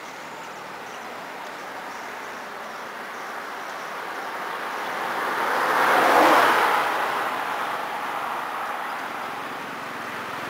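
A vehicle passing by: a broad rushing noise that swells to a peak about six seconds in and then fades away.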